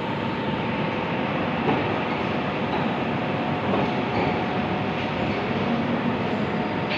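Steady, dense machinery noise of a locomotive shed workshop, with faint steady hums through it and a few light knocks.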